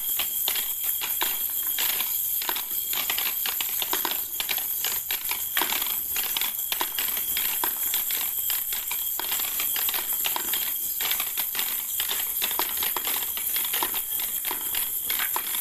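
Plastic balls rolling and clattering down a plastic spiral ball-drop tower, a dense, continuous run of quick clicks and clacks as they drop from tier to tier and knock on the base, over a steady high hiss.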